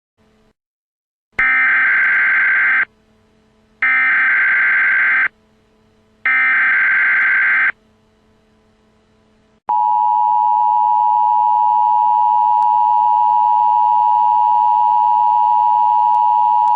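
Emergency Alert System tones: three short, harsh bursts of SAME header data, each about a second and a half long, followed about ten seconds in by the steady two-tone EAS attention signal, which holds on without a break.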